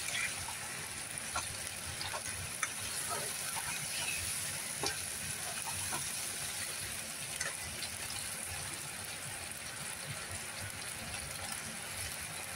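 Chicken, tomatoes and ginger-garlic paste sizzling steadily in hot oil in a non-stick pan as they are stirred, with a few light taps and scrapes of a metal spatula against the pan.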